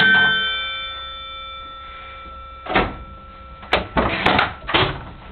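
Metallic clang ringing away over about two seconds, then a run of loud knocks and bangs from a little under three seconds in, consistent with the slam doors of a 'Thumper' diesel-electric multiple unit being shut.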